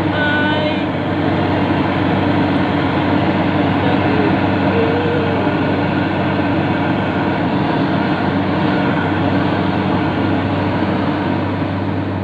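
Yanmar YH850 combine harvester's diesel engine running steadily while the machine drives along, a continuous loud drone with a low hum.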